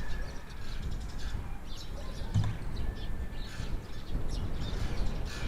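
Small birds chirping and twittering in short scattered calls over a constant low rumble, with one short low thump about halfway through.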